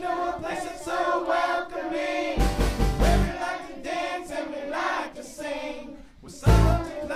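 Group of voices singing a school pop song in unison over a backing track. A deep bass hit lands twice, once about two and a half seconds in and again near the end.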